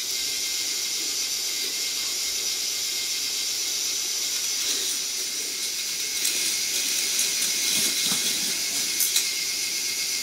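Battery motor of a K'nex roller coaster model driving its chain lift: a steady whirring hiss with a faint whine, and a few light clicks near the end.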